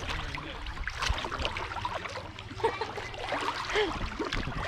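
Water sloshing and splashing as people move about in spring water, with many small irregular splashes and drips.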